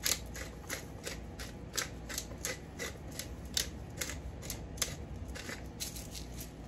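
Black pepper being ground from a hand pepper grinder, a steady run of short clicks at about four a second.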